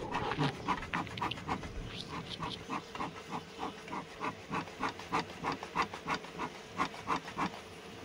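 Bee smoker's bellows being pumped quickly, about four short puffs a second, to smoke the bees off the comb of an opened hive box.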